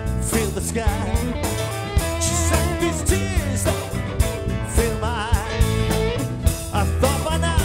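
Live blues-rock band playing an instrumental passage: lead guitar sustaining and bending notes with vibrato over bass and drums.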